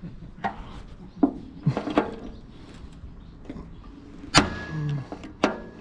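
Hand rivet gun setting a blind (pop) rivet into an aluminium mast: a few sharp clicks as the handle is worked, then a loud snap about four and a half seconds in as the rivet sets, and one more click near the end.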